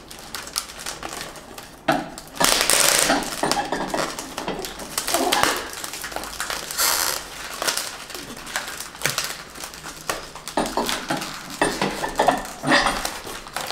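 Handling noise from unwrapping and fitting a turntable's aluminium platter: plastic wrapping rustling in uneven bursts, with light metallic clinks and knocks as the platter is handled and set onto the turntable near the end.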